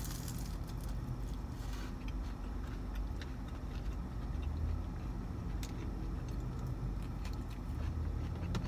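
Steady low hum of a car idling, heard inside the cabin, with faint chewing and small mouth clicks scattered through it.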